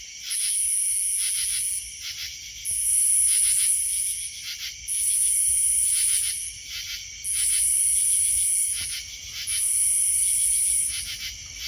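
A katydid's shrill buzzing call, repeated about every two seconds with each call lasting about a second and a half, over crickets chirping steadily.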